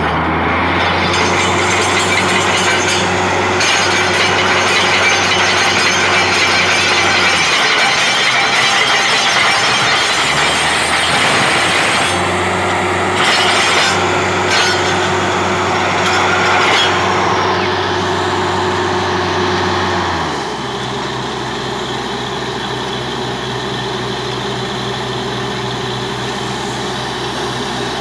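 Truck-mounted borewell drilling rig running loud and steady. A low hum under the machine noise cuts out for a few seconds about a third of the way in, comes back, then stops for good about two-thirds of the way through, when the whole sound drops a little in level.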